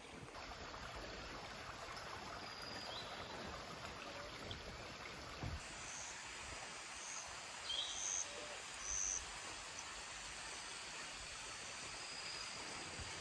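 Mountain stream running steadily over rocks, with a few short high chirps around the middle.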